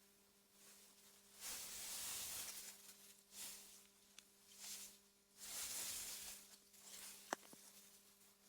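Soft wind gusting through meadow grass, a breathy rustle that swells and fades several times. A single sharp click comes near the end.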